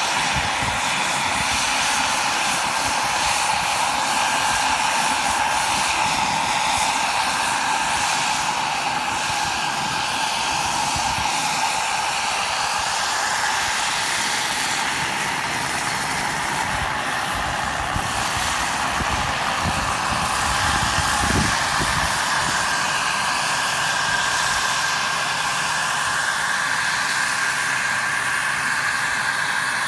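Large radio-controlled scale model of a BK 117 helicopter in flight: a steady high whine from its power plant over rotor and airflow hiss, the pitch bending slightly as it manoeuvres.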